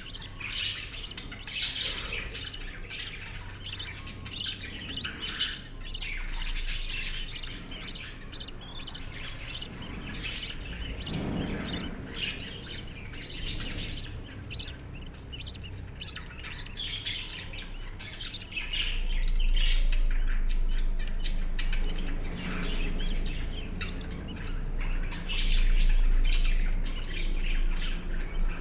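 A group of budgerigars chirping and chattering continuously, with many quick overlapping squawks and warbles. A low hum sits underneath and gets louder in the last third.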